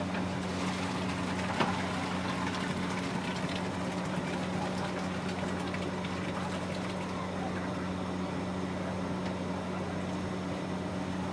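Steady low mechanical hum with an even hiss over it, and a single short knock about a second and a half in.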